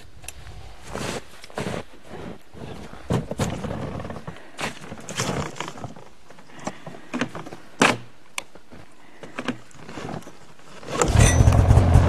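Scattered knocks, clinks and rustles as a tow rope is handled at a snowmobile's rear hitch, then about eleven seconds in the snowmobile's engine starts and runs loudly and steadily.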